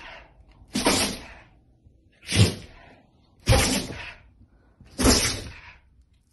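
A dog sneezing over and over, four sharp sneezes about a second and a half apart.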